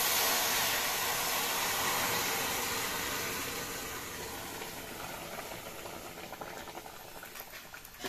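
Boiled moong dal with drumstick pieces hitting hot oil tempered with bay leaf and dried chillies in a kadai: a loud steaming hiss that slowly dies away, with scattered light crackles as it settles and a brief click near the end.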